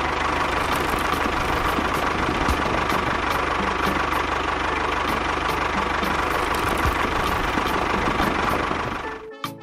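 Motor of a toy tractor running steadily under load as its blade pushes sand, a constant hum that cuts off near the end.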